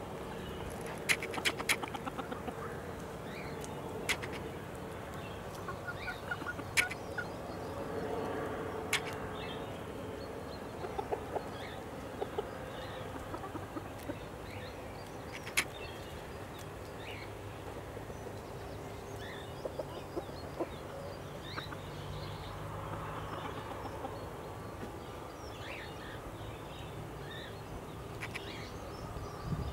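Chickens clucking softly while foraging, with scattered short calls and a few sharp clicks.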